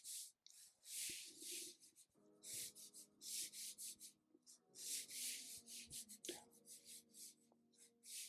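Black felt-tip marker scratching across paper in a quick series of short strokes, faint.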